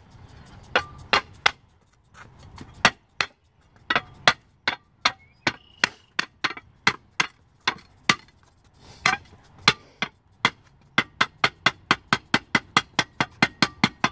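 Hand tamper pounding down the stair base, a string of sharp blows with a short ring after each. The blows come unevenly at first, then settle near the end into a fast, steady run of about four a second.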